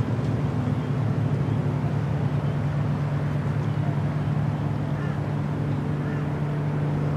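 Steady low engine-like drone, with faint short high chirps of a small bird a few times over it.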